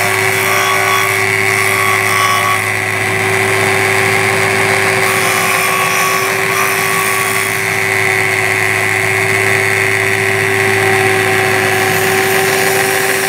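Small benchtop belt-and-disc sander running steadily with a constant motor hum, pretty noisy, while a cast sterling silver bracelet piece is held against the abrasive, adding a grinding hiss that shifts a little as the piece is moved.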